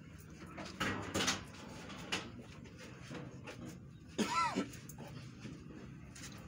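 A short high-pitched cry that rises and falls, about four seconds in, over low crowd noise, with a louder burst of noise about a second in and a few sharp clicks.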